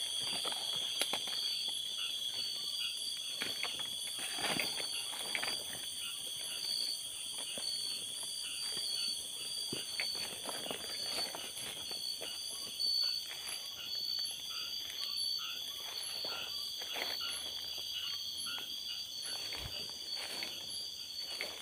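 Insect chorus of several steady high-pitched trills, one of them pulsing, with irregular footsteps and rustling through undergrowth.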